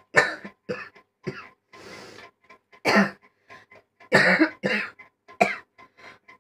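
A person coughing hard in a string of about seven harsh, sudden coughs, with a long rasping breath drawn in about two seconds in.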